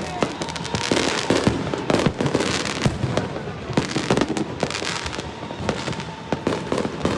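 Fireworks and firecrackers going off in a dense, continuous barrage of rapid, overlapping bangs and cracks.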